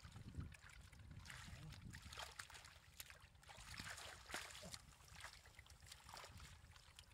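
Faint sloshing and small splashes of shallow muddy water stirred by hands and feet, with scattered soft clicks.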